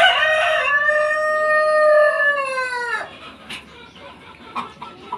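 A rooster crows once: a loud, long call of about three seconds that holds its pitch and then falls away at the end.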